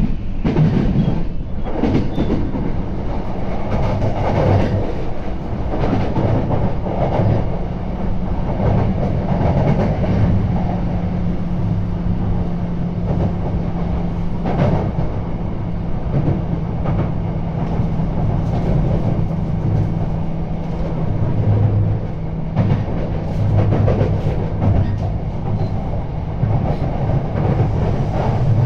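E235 series electric train running at speed, heard from inside the carriage: a steady rumble of wheels on rail with a low hum underneath and a few sharp clacks over rail joints.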